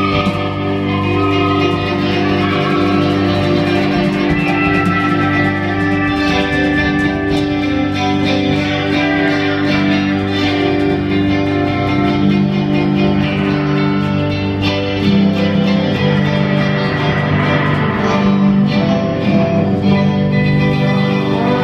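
Live band playing an instrumental passage, with drum kit, electric bass, electric guitar and a bulbul tarang (keyed Indian zither) playing sustained melody notes. There is no singing.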